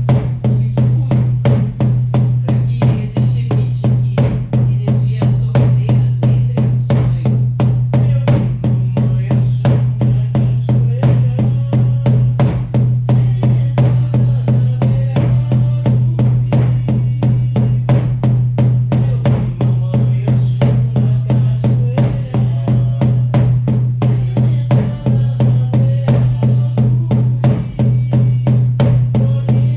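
Shamanic frame drums beaten in a steady, fast, even rhythm, with a deep, resonant boom under each stroke.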